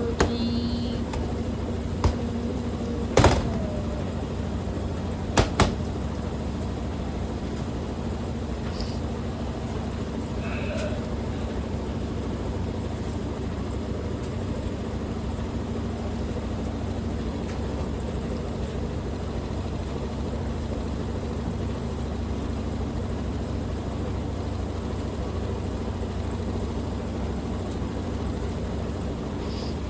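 Washing machine drum spinning fast in its spin cycle, a steady whir with an even hum. There are a few sharp knocks about three and five seconds in.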